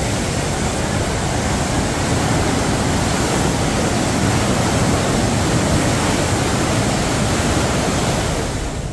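Huka Falls on the Waikato River: a loud, steady rush of white water churning through the rapids.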